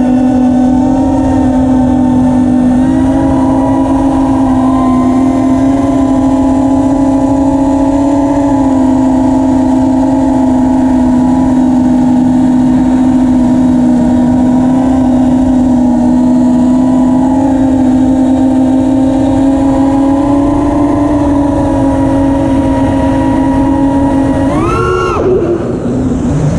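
Brushless motors of a 6S six-inch FPV quadcopter (T-Motor F80 Pro 1900KV, spinning Gemfan 5042 propellers) giving a loud, steady whine at cruising throttle, wavering slightly in pitch. Near the end the pitch shoots up briefly and drops back as the throttle is punched and cut.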